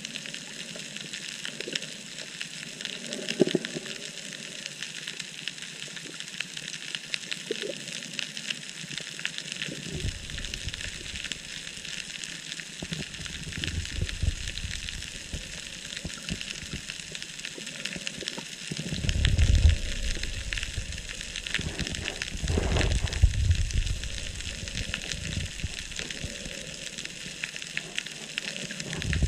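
Underwater ambience picked up by the camera: a dense, steady, fine crackling, with a few low rumbles about ten, nineteen and twenty-three seconds in.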